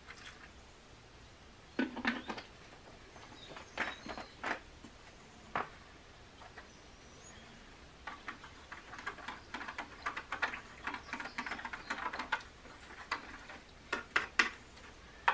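Small handling noises at a workbench: a knock about two seconds in, then a run of light clicks and crinkles from latex-gloved hands working in a plastic tray, denser in the second half.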